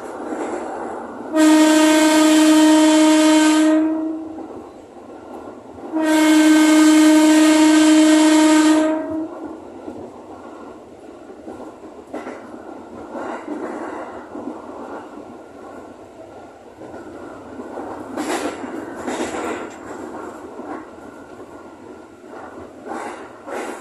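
JR 205-series electric commuter train's horn sounding two long, steady blasts, each about three seconds, a couple of seconds apart. Afterwards the train runs on with a steady rumble and scattered clicks from the rails.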